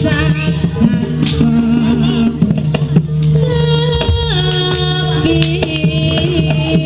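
Loud live Jaranan dance music: a sung melody moving in held, stepping notes over a steady low drone, with drum strokes throughout.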